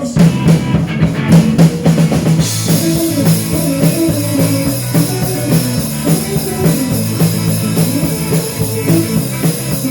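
Instrumental break in a rock-tinged song: a full drum kit and a guitar playing a steady beat, with no vocals.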